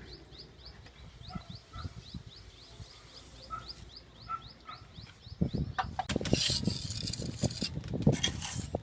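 A faint high chirping repeated about four times a second for the first few seconds; then, from about five seconds in, loud irregular scraping strokes of a trowel working sand-and-cement render on a wall.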